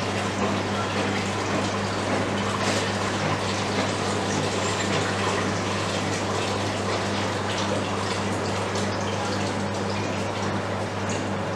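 Rinse water draining from a soft-serve ice cream machine's dispensing nozzles into a plastic jug, a steady flow, over a steady low hum from the machine running its clean cycle. The water is being flushed out of the freezing cylinders through the draw valves after the first-time wash.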